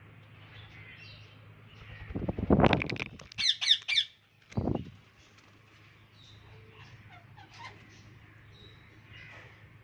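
Parrots squawking and chirping. About two seconds in comes a loud harsh burst, then a quick run of shrill squawks, and a short low sound a little after.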